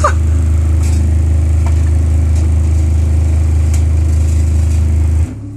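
Very deep, steady bass tone from a home hi-fi and subwoofer played at high volume, with a few faint clicks from rattling objects; it cuts off suddenly near the end.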